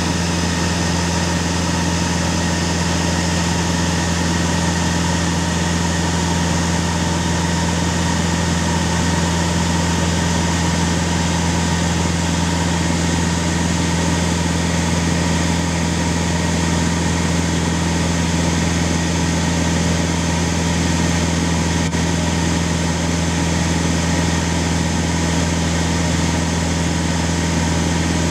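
Cabin noise of a light aircraft in level flight: a steady, deep engine drone under an even rush of airflow, unchanging throughout.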